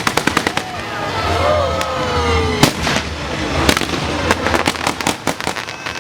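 Aerial fireworks going off: a rapid run of sharp crackling reports at the start, then single loud bangs and scattered cracks.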